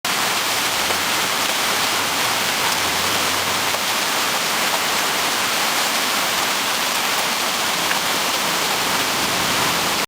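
Heavy rain pouring down: a dense, steady hiss of countless drops with no let-up.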